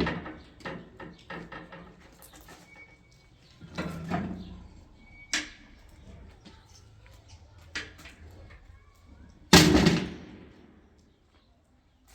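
Irregular knocks and bangs of things being handled and set down, with one loud, heavy bang near the end that rings briefly before dying away.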